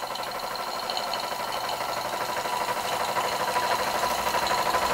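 Single-cylinder oscillating model steam engine running fast on steam, a rapid, even beat that grows slightly louder; it runs smoothly.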